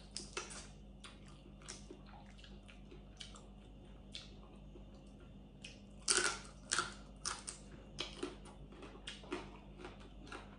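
Close-up eating sounds of a blue crab and long bean salad meal: a run of small crunches and clicks from biting and chewing, faint at first and louder from about six seconds in.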